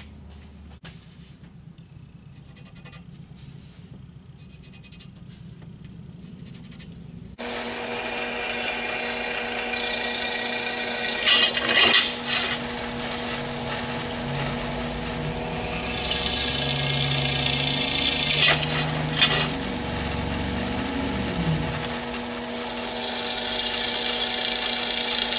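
Quiet for the first several seconds, then a benchtop drill press running with its twist bit cutting through steel angle iron: a steady motor hum under a grinding, hissing cut that swells several times as the bit bites into the metal.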